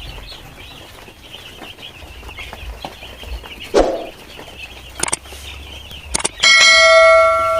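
Five-day-old broiler chicks cheeping continuously, with a couple of sharp clicks. From about six seconds in, a loud bell-like chime rings out steadily and then fades.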